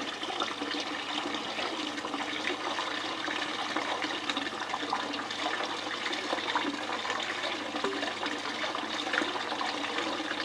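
Water running steadily over a DIY Miller table, a home-built water table for catching fine gold, with many small splashes and ticks.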